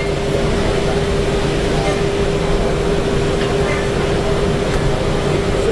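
Mazak Integrex i-400S mill-turn machine cutting under coolant: a steady machine hum with one constant tone, over a background murmur of voices.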